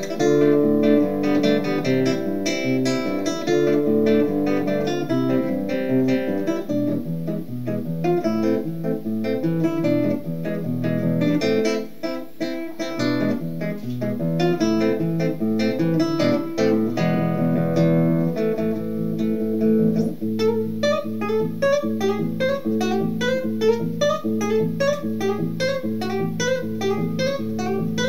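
Solo acoustic guitar playing a melodic piece, picked notes ringing over chords. About 20 seconds in it settles into a fast, even, repeating picked pattern over a held low note.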